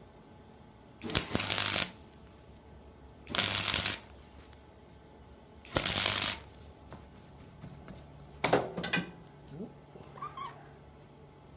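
Gasless flux-core MIG welder laying short tack welds: four bursts of arc noise, each under a second and a couple of seconds apart.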